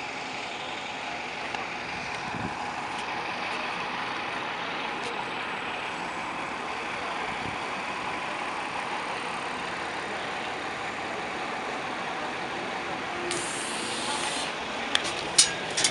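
Steady city street noise with road traffic. About 13 s in, a short rush of hiss as the metro station's entrance doors are pushed open, followed near the end by several sharp clicks and knocks from the doors.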